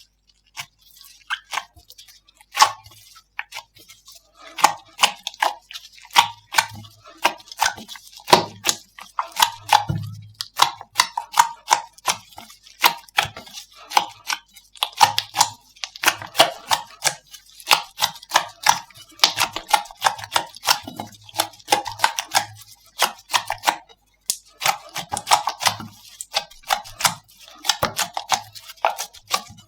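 Hands squeezing, poking and stretching slime, making dense irregular clicking and popping sounds, with short pauses now and then.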